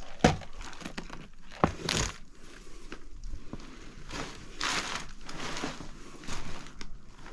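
Rustling and crunching of debris and old papers, with a few sharp knocks near the start and around two seconds in.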